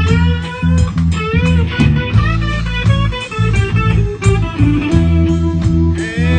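Live band playing an instrumental break in a reggae groove: an electric guitar plays a lead line with bending notes over bass and drums.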